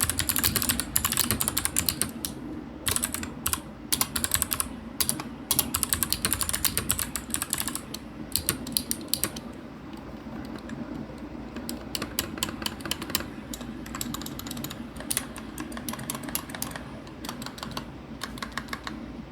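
Fast typing on a Royal Kludge RK100 mechanical keyboard with clicky tactile switches, a dense run of sharp key clicks that thins out about halfway through. Beneath it runs a steady hum of a ceiling fan on high and air conditioning blowing from a vent.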